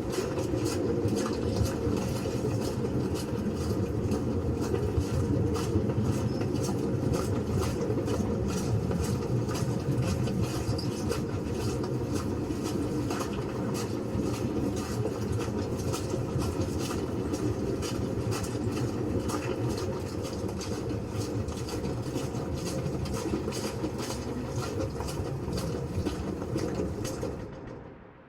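Dense footsteps of many people walking at once, a continuous clatter of overlapping steps that fades out near the end.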